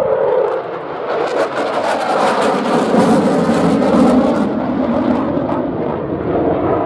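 Eurofighter Typhoon's twin EJ200 jet engines running in afterburner during a low display pass, a loud rushing roar with sharp crackling that builds about a second in and eases off after about four and a half seconds.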